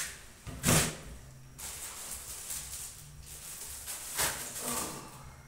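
Kitchen handling noises as items are put away: a sharp knock just under a second in, then rattling and rustling, with another clack about four seconds in.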